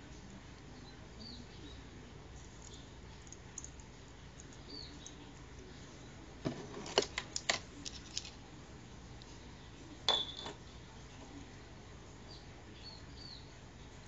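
Small sharp clicks and taps as a metal falconry swivel and leather jess are handled and fitted together: a quick cluster about halfway through and a shorter group about three seconds later. Faint high bird chirps come and go in the background.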